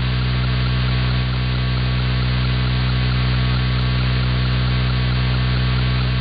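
AM radio receiver (a web SDR) tuned to a spot with no station, putting out a steady buzzing mains hum over static: electrical interference picked up on the band.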